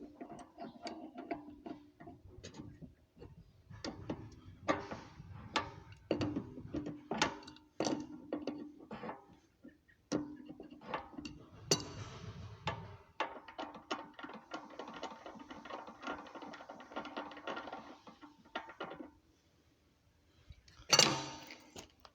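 Hand-washing at a sink: scattered knocks and clatter of things being handled, then water running for about six seconds, and a sharp knock near the end.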